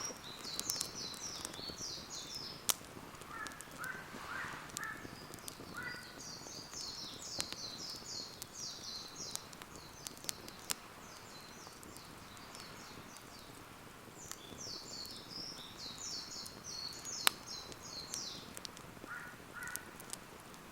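Wood campfire crackling with scattered sharp pops, while birds sing repeated phrases of rapid high notes. A lower bird call comes in about four seconds in and again near the end.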